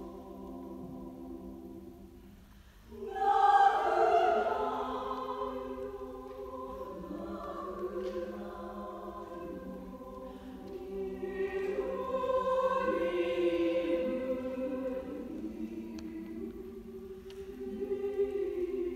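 Women's choir singing sustained chords. The sound thins almost to nothing about three seconds in, then the choir comes back in loudly, and it swells again near the middle.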